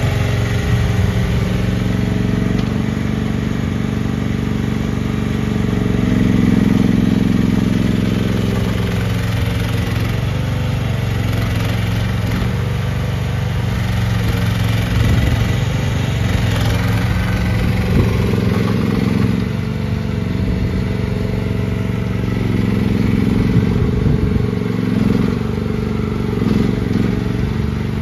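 FF15 mini excavator's engine running steadily, its note swelling louder and higher several times as the machine is worked.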